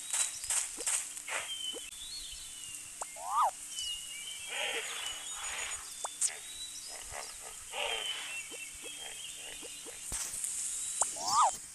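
Animal calls: two harsh, noisy calls about a second long near the middle, with short rising calls and high bird chirps around them.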